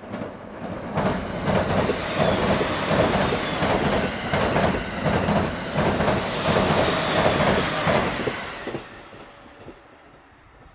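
JR East E231-series electric multiple unit passing at speed over a steel girder bridge, its wheels clacking over the rail joints in a steady run of clacks. It grows loud about a second in and fades away as the last cars go by near the end.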